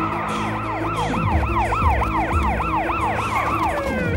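Emergency vehicle siren in a fast yelp, its pitch swooping up and down about three to four times a second.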